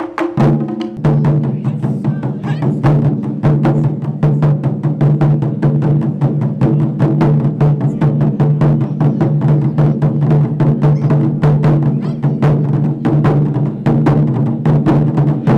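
Taiko drum ensemble of four players beating barrel-shaped taiko drums with sticks in a fast, steady rhythm of strokes. The full group comes in about half a second in, and the drums' low ring then holds under the strokes.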